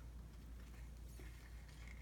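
Faint rustle and slide of a trading card being handled and slipped into a soft plastic sleeve, over a steady low hum.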